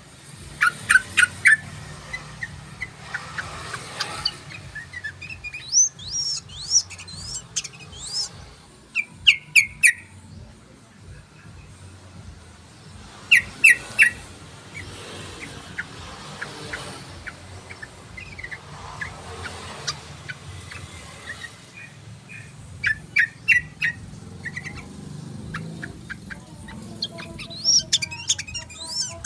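Yellow-vented bulbul (trucukan) singing: short phrases of quick chirping notes, repeated every few seconds.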